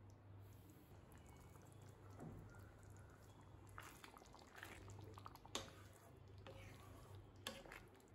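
Faint squelching and scraping of a wooden spatula stirring thick, simmering egg curry in a kadai, with two sharp knocks in the second half, over a low steady hum.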